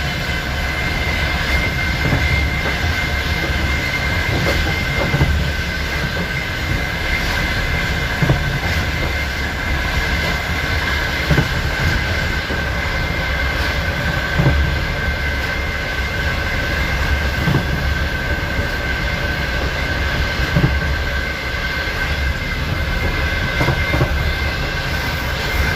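Wheels of a night express train rolling over the rails: a steady rumble with a continuous high whine and irregular knocks as the wheels strike the rail joints.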